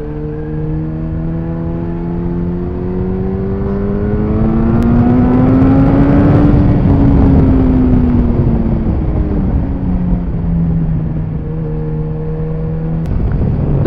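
Yamaha FZ8 Fazer's inline-four engine running through a MIVV Strom GP exhaust with its baffle removed, with some wind noise. The engine note climbs steadily to a peak about halfway through, then falls back and settles to a steady drone as the throttle closes.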